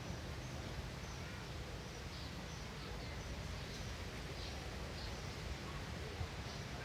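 Faint steady background noise with faint, short high chirps repeating every half second to a second.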